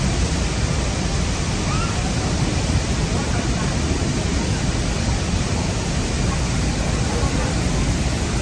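Steady roar of Niagara's Horseshoe Falls and the rushing river below it, an even wash of water noise without let-up.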